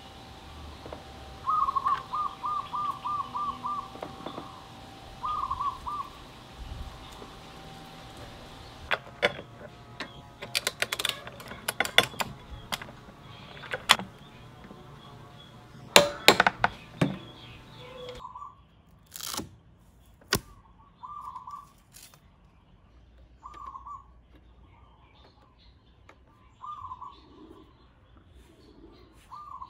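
Birds chirping, with a quick run of about eight chirps in the first few seconds. Partway through, a wrench on the Yamaha Zuma 125's 24 mm rear axle nut clicks in uneven bursts as it is tightened, the loudest sharp clicks coming a little past halfway. Single bird calls and a few low soft coos follow.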